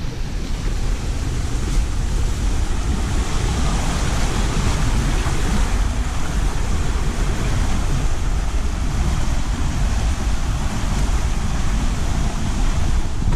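Wind buffeting the microphone of a moving camera: a continuous, uneven low rumble with a rushing hiss over it, building slightly in the first second and then steady.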